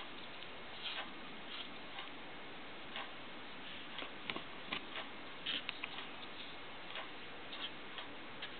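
Clock ticking faintly and regularly, about once a second, with a few irregular light clicks in between around the middle.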